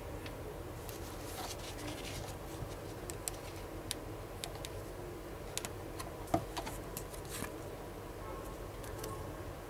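Clear plastic clamshell packaging and a paper insert card handled: scattered light clicks and crinkles over a steady low hum, with one sharper click a little past the middle.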